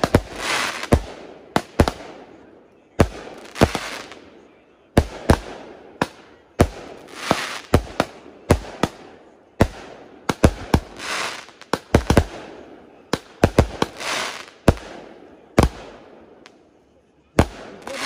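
Aerial fireworks going off in quick succession: sharp bangs of shells launching and bursting, one to two a second, each trailing off in a crackle. There is a short lull near the end, then the bangs start again.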